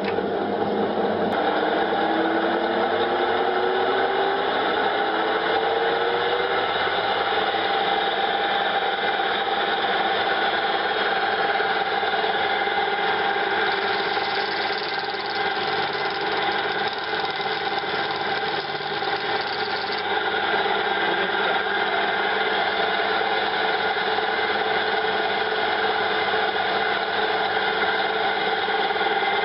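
Woodworking lathe switched on and spinning up, its hum rising in pitch over the first six seconds or so, then running steadily.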